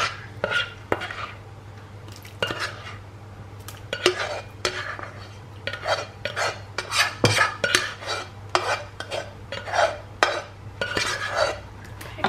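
A spoon scraping and tapping against a pan as a wet, chunky lentil-and-tomato mix is scraped out into a glass baking dish: a run of irregular scrapes and knocks. A steady low hum runs underneath.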